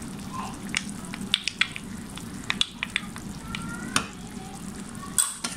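Minced chicken in a watery tomato sauce sizzling in a non-stick frying pan, with scattered sharp pops and crackles as a wooden spoon stirs it; a louder knock about five seconds in.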